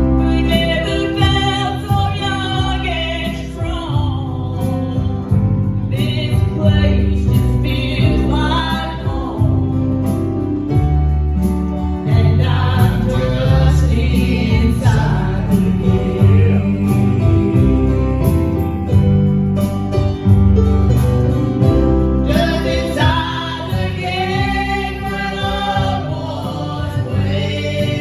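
Live gospel song: voices singing over an acoustic guitar and low bass accompaniment.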